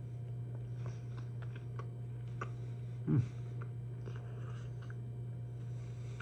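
A person chewing a thick strip of smoked beef jerky with the mouth closed, giving small scattered wet clicks. A brief louder low sound comes about three seconds in. A steady low hum runs underneath.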